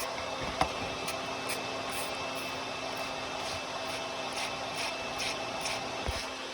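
Small electric air pump running steadily, blowing air into the exhaust to pressurise it and find a leak at the exhaust manifold. A hand spray bottle of soapy water squirts in short hisses over it, several times in quick runs.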